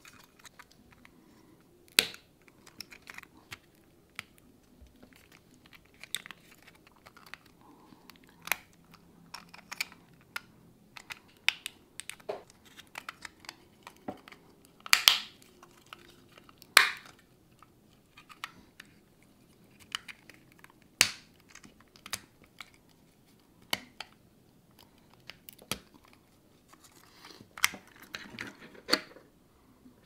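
3D-printed plastic parts of a foldable model truck being folded and pressed together by hand: irregular sharp clicks and snaps over light handling noise, with a few much louder snaps scattered through.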